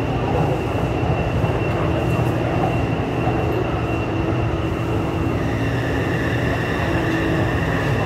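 Taipei Metro train heard from inside the passenger car while running at speed: a steady rumble of wheels on rail with a constant electric whine. A second, higher whine joins about five seconds in.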